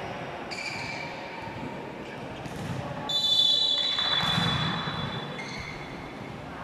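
Crowd noise at an indoor basketball game. A referee's whistle is blown once for about a second a little after the middle, and the crowd noise swells just after it.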